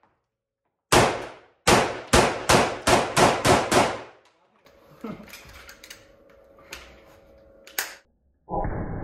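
AK-74 rifle fired eight times, echoing in an indoor range: two single shots about a second apart, then six in quick succession at about three a second.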